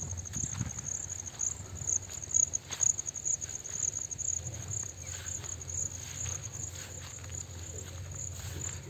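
Insects calling in a steady, high-pitched, rapidly pulsing chorus, with a low rumble and a few soft clicks beneath.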